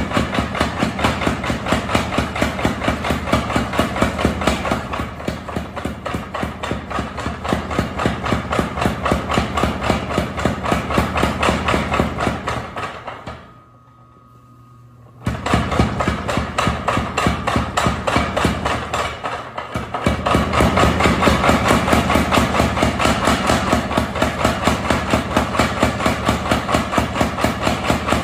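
Pedal-controlled mechanical power hammer pounding in a fast, even rhythm of about five blows a second. It stops for a moment about halfway through, leaving only a faint hum, then starts hammering again.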